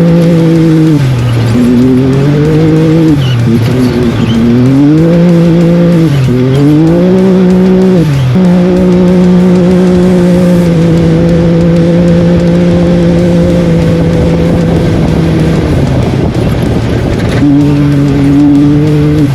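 Off-road race vehicle's engine revving up and dropping back several times, then held at a steady high pitch for several seconds before easing off briefly and picking up again near the end, over a constant rush of tyre and terrain noise.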